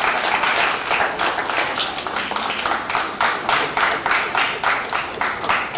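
Spectators applauding, the clapping slowly thinning out to a few separate claps near the end.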